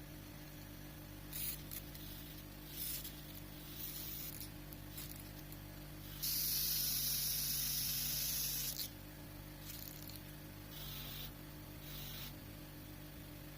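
Several short hissing sprays, then one louder spray lasting about two and a half seconds past the middle, starting and stopping sharply, over a steady low hum.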